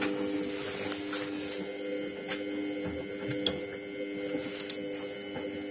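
Samsung WF604 front-loading washing machine slowly tumbling its drum after the final spin: a steady motor whine with a few light clicks.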